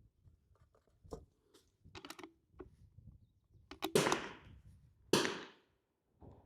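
.22 LR rimfire rifle shots on a firing line: two sharp reports about a second apart, each with a short fading tail, preceded by several fainter clicks and pops.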